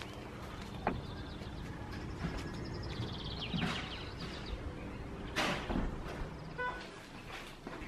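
Outdoor ambience with a steady low background, small birds chirping in quick high trills, and a few soft knocks and rustles.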